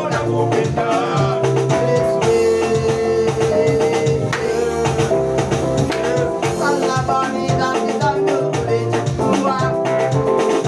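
Upbeat song with drums, bass, guitar and singing at a steady beat.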